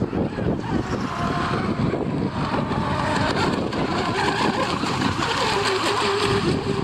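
Radio-controlled model boat's motor whining as the boat runs on the water, its pitch wavering, with wind buffeting the microphone.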